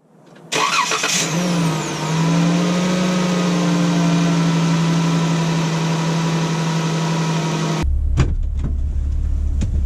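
Car engine starting and settling into a steady idle. Near the end it gives way abruptly to a deep low rumble with a few knocks.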